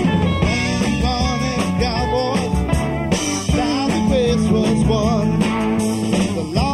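A Southern rock band playing live, with electric guitars, bass, drums and keyboards going together steadily and loud. Over the band, a lead line rises and falls in bent, wavering notes.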